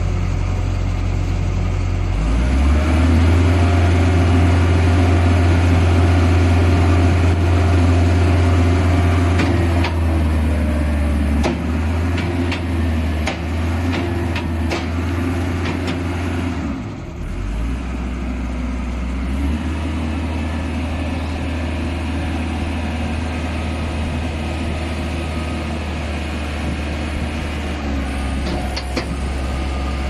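An engine running steadily to drive a skid steer concrete mixer bucket's hydraulic paddle motor as the paddles turn. It grows louder about two seconds in and eases off around seventeen seconds, with a few light metallic clicks.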